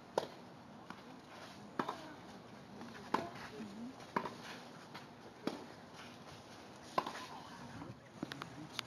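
Tennis balls being struck by rackets and bouncing on a hard court during a doubles rally: a string of sharp pops about every second and a half, then a few smaller, quicker knocks near the end.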